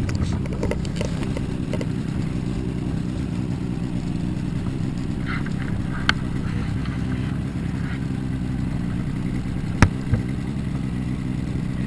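Boat's outboard motor idling steadily. A sharp knock about halfway through and two more close together near the end.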